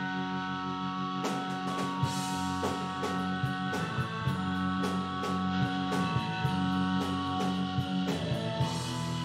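Live stoner rock band playing: held keyboard chords over guitar, with the drum kit and cymbals coming in about a second in and keeping a steady beat.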